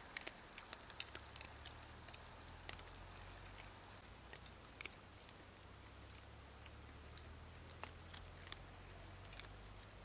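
Dogs chewing and biting pieces of cooked pork, faint scattered clicks and crunches, most of them in the first second or two, over a faint steady low hum.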